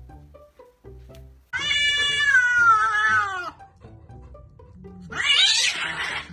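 Cats fighting: one long drawn-out yowl of about two seconds, its pitch sagging slowly, then a harsher, rougher screech as they scuffle near the end.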